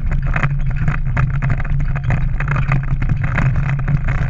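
Pickup truck's engine running steadily while driving over a rough dirt track, heard from the open load bed. Frequent irregular knocks and rattles come from the truck jolting.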